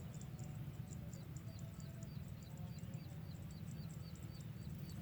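Rice-field ambience: short, high chirps repeating evenly, about three to four a second, over a low rumble.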